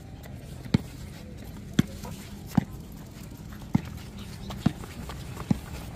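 Footsteps on a concrete path, one sharp step about every second, over a steady low hum.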